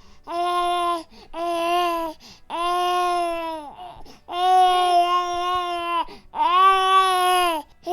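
Infant crying: five drawn-out wails, each held at a steady pitch, with short breaths between them.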